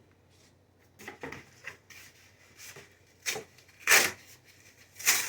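Things being handled and set down on a work surface: a few separate, irregular knocks and clatters, the loudest about four seconds in and another near the end.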